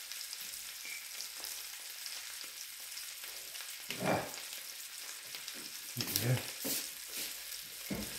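Pork chop frying in hot fat in a pan, a steady crackling sizzle. A few dull knocks stand out above it about four seconds in and again around six to seven seconds.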